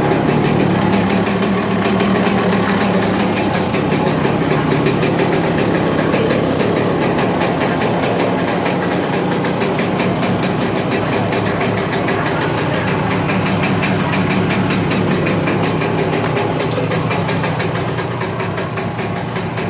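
1998 Yamaha YZ125's single-cylinder two-stroke engine running steadily at idle while cold, on a heat cycle to bed in its new cylinder sleeve and piston.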